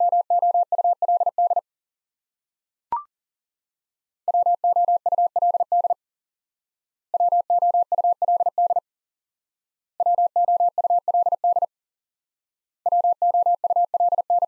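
Morse code sidetone, a steady tone of about 700 Hz, keying the word "would" at 40 words per minute. The word is sent five times in bursts of about a second and a half with pauses between them, and a short rising chirp sounds about three seconds in.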